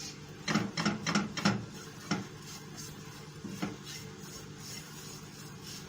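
A spoon stirring and scraping mushrooms and flour in a frying pan, with several sharp knocks against the pan in the first two seconds and a steady faint sizzle under it as the flour toasts.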